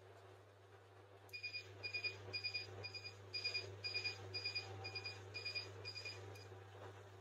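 Laser hair-removal machine beeping with each pulse fired from the handpiece: a quick run of short, high beeps, about two a second, starting about a second in and stopping near the end, over a steady low hum.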